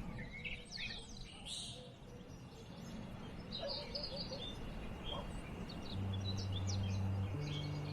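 Several wild birds chirping in short, high calls over a faint steady background. About six seconds in, a low sustained musical drone comes in beneath the birdsong.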